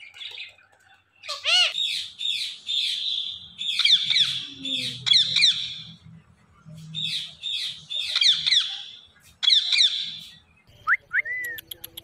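Indian ringneck parakeets screeching: harsh, high-pitched calls come in four bursts of rapid repeats. Near the end there are a few short rising whistles.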